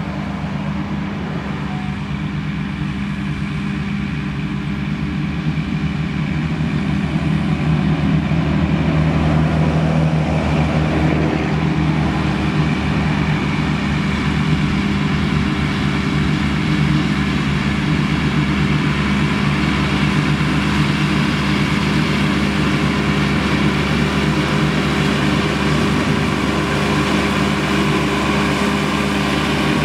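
International Harvester tractor engine running steadily under load, with the Krone mower-conditioner it pulls running behind it. The sound grows louder over the first several seconds, then holds level.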